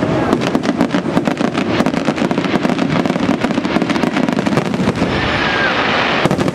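Aerial fireworks display: a dense barrage of shell bursts with rapid crackling reports. About five seconds in it eases to a steady hiss, then a few more sharp cracks come near the end.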